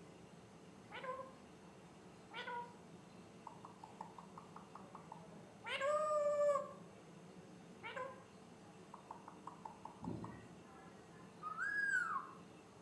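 Pet parrot calling: short falling chirps, a longer meow-like call, two runs of rapid clicking and a rising-then-falling whistle near the end.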